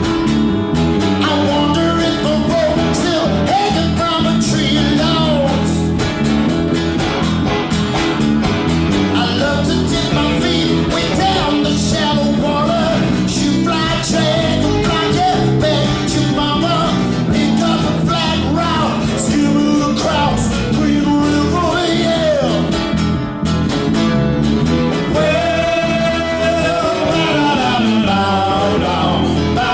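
Live band playing a song: bass guitar, strummed acoustic guitar and electric guitar, with a man singing lead vocals.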